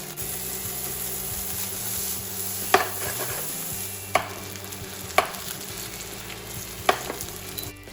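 Chopped chorizo sizzling as it fries in a little oil in a pan, the steady hiss showing the pan is hot enough. Four sharp knocks of a utensil against the pan come as it is stirred, and the sizzle cuts off abruptly near the end.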